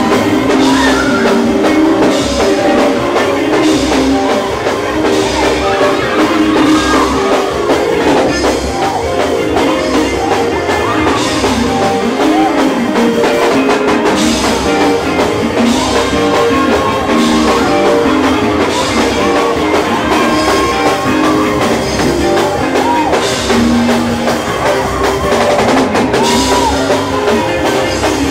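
Loud Pentecostal praise music from a church band, with drum kit and guitar keeping a steady beat and voices singing over it.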